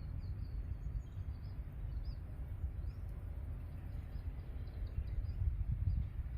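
Small birds chirping with many short, high calls, over a low outdoor rumble like wind on the microphone.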